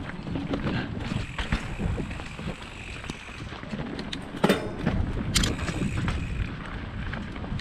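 Mountain bike rolling fast over rough trail: a steady rumble of tyres on dirt and rock with rattling and clicking from the bike, and two sharp knocks about four and a half and five and a half seconds in.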